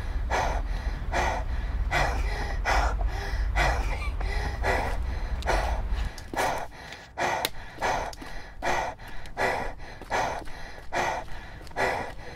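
A girl gasping and panting heavily and rhythmically, about one breath every three-quarters of a second, as if overheated and short of air inside a closed hot car. A low rumble runs under the breaths and stops about halfway through.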